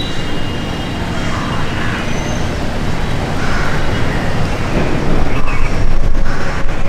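Steady rumbling noise of road traffic, growing a little louder for a second or two near the end.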